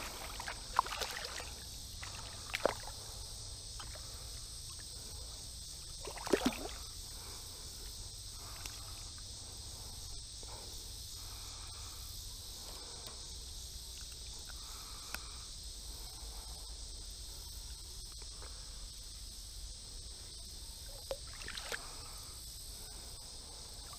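Shallow river water sloshing with a few brief splashes as a hooked smallmouth bass is handled at the surface, over a steady high hiss.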